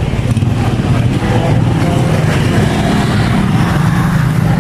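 Yamaha Mio Sporty scooter's single-cylinder four-stroke engine idling steadily after a crankshaft replacement, running without the earlier knock, which the owner says is gone.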